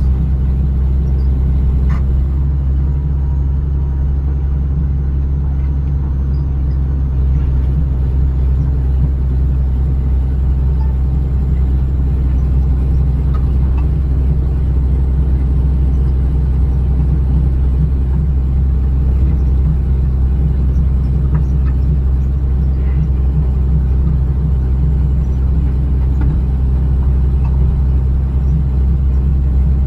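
Diesel engine of a John Deere 200LC (Hitachi EX200) excavator running steadily.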